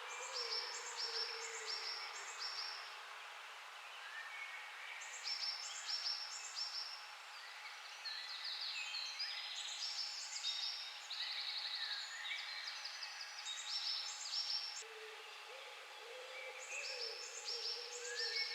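Wild birds singing in a dawn chorus: phrases of repeated high notes come again and again. A low, wavering call sounds beneath them at the start and again near the end.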